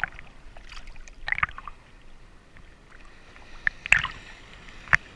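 Water sloshing and splashing in irregular bursts, with a few sharp slaps, the loudest about four seconds in and another just before the end, over a steady background wash.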